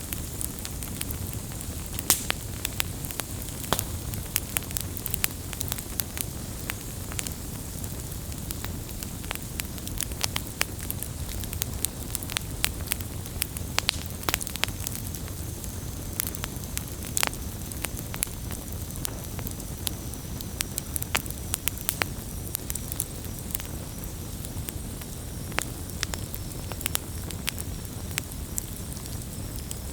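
Wood fire burning with a steady low rumble and frequent sharp, irregular crackles and pops.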